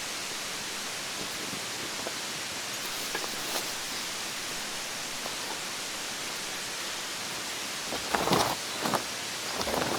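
Steady rush of a mountain stream, with a few short rustles near the end.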